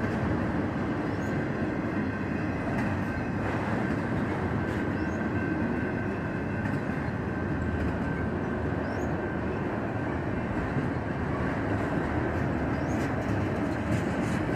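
Empty autorack freight cars rolling steadily past: a continuous rumble and rattle of steel wheels on rail, with faint clicks and a faint steady high whine.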